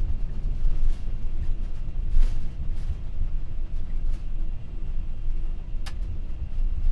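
Steady low rumble in an MD-11F cockpit during the landing rollout, as the freighter decelerates on the runway. A single sharp click sounds about six seconds in.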